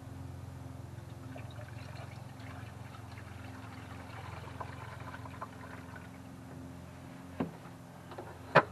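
Washer fluid pouring and trickling from a nearly empty plastic jug into a car's windshield washer reservoir, over a steady low hum. A couple of sharp clicks come near the end as the jug is lifted away.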